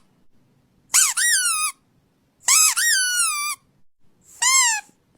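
A dog's squeaky toy squeezed three times, with a pause of about a second between squeaks. Each squeak jumps up in pitch and then slides down.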